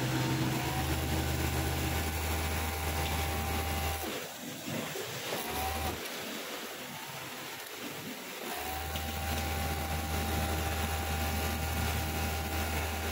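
Industrial overlock (serger) sewing machine stitching the edge of denim. It runs in spurts: a run of a few seconds, a brief burst, then a longer run of about five seconds, with its motor whine rising at each start and falling at each stop.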